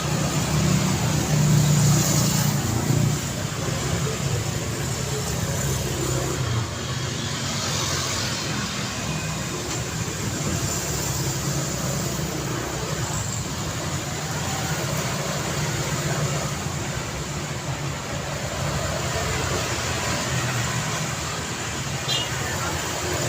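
Road traffic noise: a steady mix of vehicle engines and tyres, with a louder vehicle passing close in the first few seconds.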